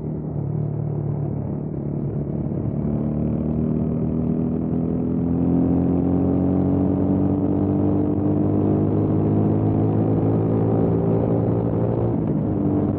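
Motorcycle engine pulling steadily under way, its pitch rising slowly for most of the stretch, with a change in note near the end.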